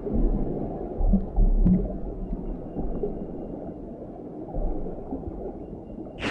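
Muffled underwater ambience from a film soundtrack: a low, swelling rumble and burbling of water as heard beneath the surface. A sudden sharp sound effect hits right at the end.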